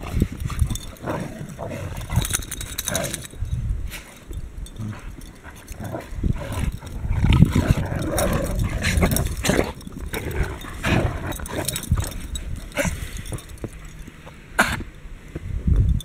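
Several dogs play-fighting, with irregular barks, yips and growls.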